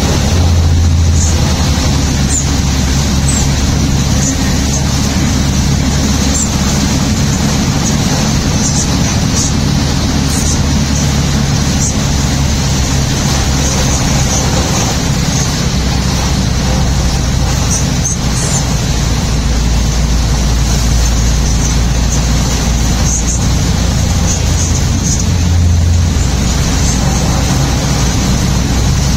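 Steady road noise inside a moving car in heavy rain: tyres hissing on the wet road under a low engine drone, with rain striking the car.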